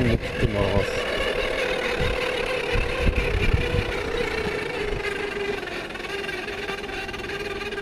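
Harley-Davidson XLH1200 Sportster's air-cooled V-twin engine running, with a steady whine over the engine note that slowly falls in pitch as the sound eases off. The bike is being recorded for an abnormal noise.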